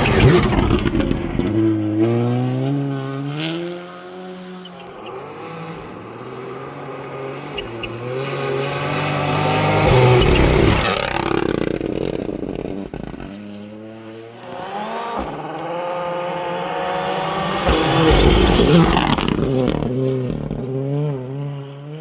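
Rally cars driving hard past on a stage. The engines rev up through the gears, with the pitch falling sharply at each shift, and get loudest as cars pass about half a second, ten seconds and eighteen seconds in.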